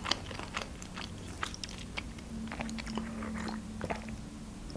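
Close-up chewing of French fries: soft, irregular wet mouth clicks with closed lips, and a sip of water from a glass near the end. A faint steady hum runs underneath.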